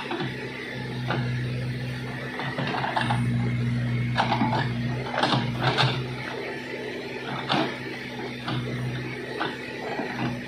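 Backhoe loader's diesel engine running with a steady low hum that eases and picks up a few times, with scattered sharp metallic knocks and clanks, the strongest a quick cluster about halfway through.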